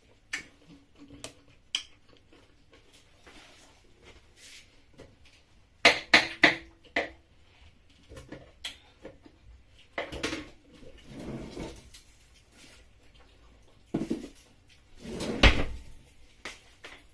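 Irregular knocks and clicks of a knife on a wooden chopping board while pineapple is cut up, with chunks dropped into a blender jug; a quick run of sharp strikes about six seconds in and a louder thump near the end.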